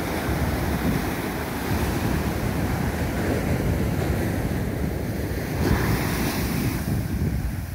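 Surf breaking and washing up a sandy beach, with wind buffeting the microphone. A louder rush of surf comes about six seconds in.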